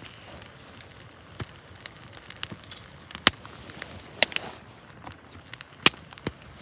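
Wood campfire crackling, with irregular sharp pops over a faint hiss.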